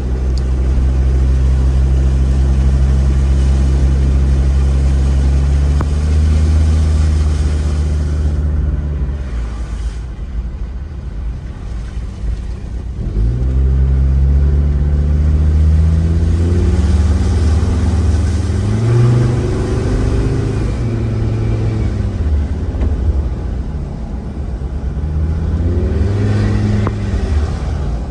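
Car engines driving through a flooded road. One runs at steady low revs for about nine seconds and fades, then another pulls away, its engine rising in pitch through gear changes, and a further vehicle accelerates near the end.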